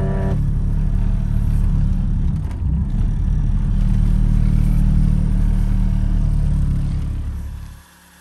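Cabin noise of a 1991 Saturn SL1 being driven: engine and road rumble, with a short dip about two and a half seconds in. It drops away abruptly near the end.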